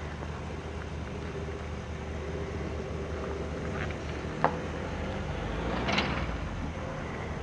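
Diesel engine of a solar-post pile driver running steadily, with a sharp metallic knock about four and a half seconds in and a louder clank near the end.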